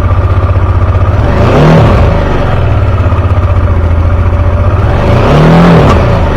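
Motorcycle engine idling and revved twice, about a second and a half in and again about five seconds in, each time rising in pitch and dropping back to idle.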